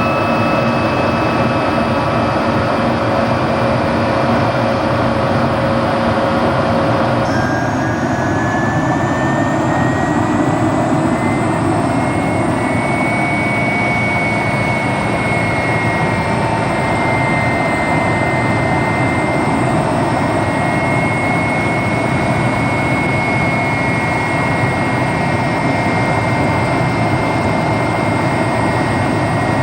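Helicopter engines and rotor running with a loud, steady noise. About seven seconds in, the sound changes abruptly and a whine rises in pitch for several seconds, then holds steady.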